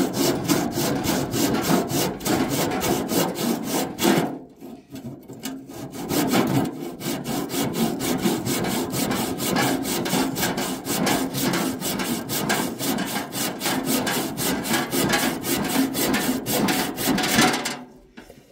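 An old, rusty bow saw cutting through a wooden stick with quick, even back-and-forth strokes. The sawing pauses briefly about four seconds in, then goes on until it stops just before the end.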